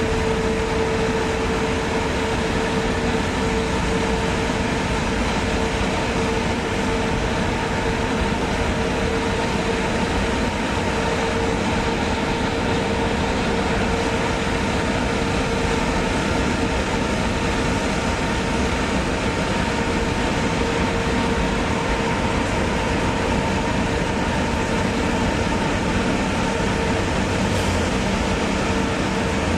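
A car driving at steady speed through a road tunnel: continuous tyre and engine rumble with a constant droning hum underneath.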